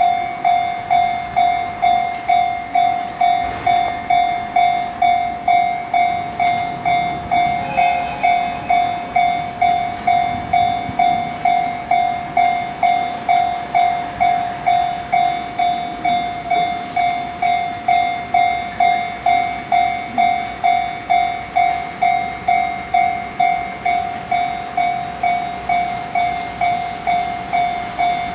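Japanese railway level-crossing warning bell ringing: an electronic clang repeating evenly about twice a second, signalling an approaching train. A brief extra tone sounds about eight seconds in.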